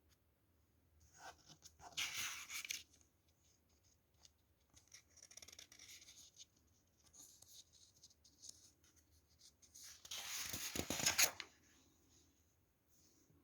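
Scratchy strokes of a pen on paper, coming in bursts: one about two seconds in, lighter scratching in the middle, and the longest and loudest run around ten to eleven seconds.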